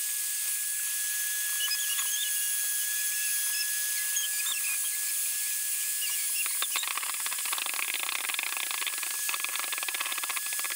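Handheld electric heat gun running steadily, a fan hiss with a thin high whine, blowing hot air to shrink a solder-seal sleeve over a wire splice. A fine crackle joins in about two-thirds of the way through.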